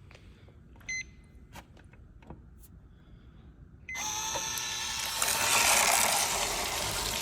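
Water softener control valve being stepped through its regeneration cycles: a few clicks and short beeps from the control head. About four seconds in, the valve's drive motor starts running with a rush of water, which grows louder a second later.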